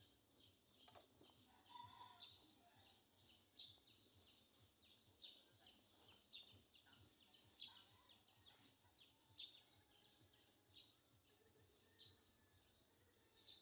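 Faint bird chirping outdoors: short high chirps repeating every second or so over a low background hush.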